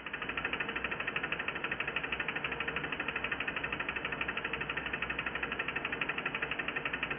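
Small model Stirling hot-air engine running on a burner flame, its pistons and linkage clicking in a rapid, even rhythm.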